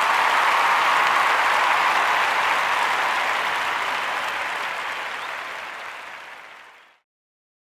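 Crowd applause sound effect, a dense steady clapping that slowly fades out and ends in silence about seven seconds in.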